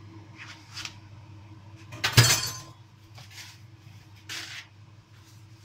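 Crockery clinking: a single sharp, ringing clink about two seconds in, with a few softer knocks, over a steady low hum.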